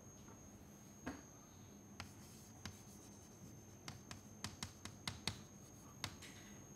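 Chalk writing on a chalkboard: a faint run of short taps and scratches as a word is written, starting about two seconds in.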